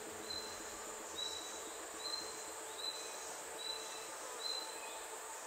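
Outdoor ambience: a steady hiss with a short, high chirp repeating evenly, about once every 0.8 seconds.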